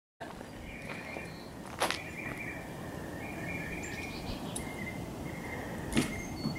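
Outdoor background with repeated high, short chirping calls, and two sharp clicks, one about two seconds in and one near the end.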